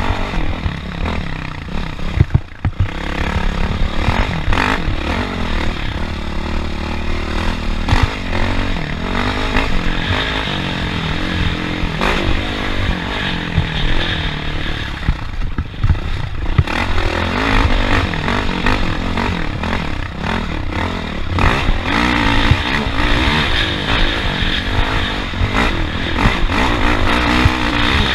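Off-road vehicle engine running hard over a rough dirt course, its revs rising and falling, with frequent knocks and rattles from the chassis over the bumps.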